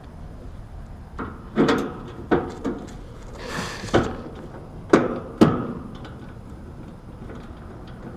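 A run of sharp knocks and clanks, about seven over four seconds, with a short scraping hiss in the middle, from hands working on an air conditioner condensing unit.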